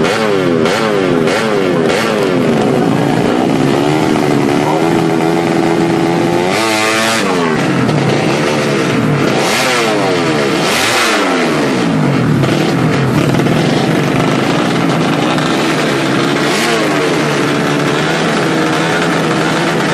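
Yamaha Jupiter motorcycle engine bored out to 180cc for drag racing, revved repeatedly. Quick blips rise and fall in pitch over the first few seconds, a sharp rev comes about seven seconds in, and more revs follow around ten to twelve seconds in. Near the end it settles to a steadier, fast idle.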